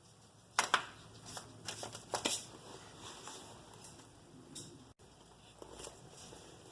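Brake pads and caliper hardware being handled: a cluster of sharp metallic clicks and scrapes in the first two seconds or so, then lighter, scattered handling noises.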